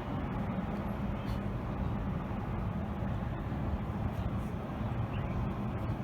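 Strong wind buffeting the microphone: a steady low rumble with no distinct events.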